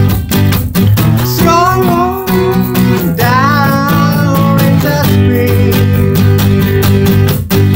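Steel-string acoustic guitar (a Martin D-28) strummed steadily. A voice sings two wavering melodic phrases over it, about one and three seconds in.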